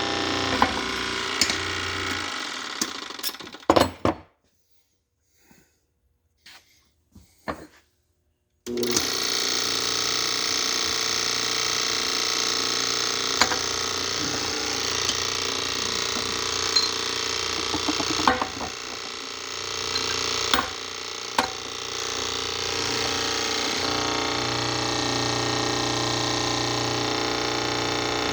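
Steady running of a shop machine with a few sharp metallic clicks while old connecting-rod bolts are pressed out. It stops about four seconds in and gives near silence with a few small clicks, then starts again for the rest.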